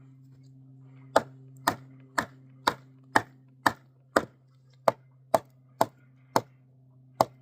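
Kindling being chopped: about a dozen sharp chops into wood, roughly two a second, starting about a second in. A steady low hum runs underneath.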